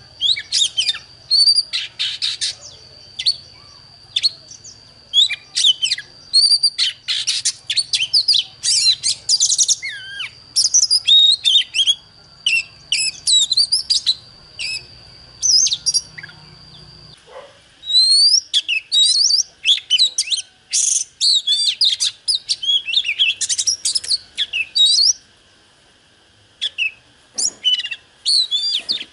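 Oriental magpie-robin singing: a fast, varied run of clear whistles, trills and chirps in short phrases with brief pauses. A steady thin high tone behind it cuts off about halfway through.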